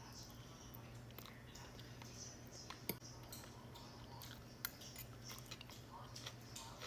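Faint chewing of food, with a few light clicks and two sharper ticks, over a low steady hum.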